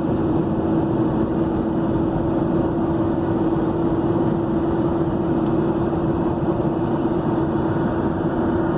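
Steady road and engine noise inside a moving vehicle's cabin while driving, an even rumble with a constant hum running under it.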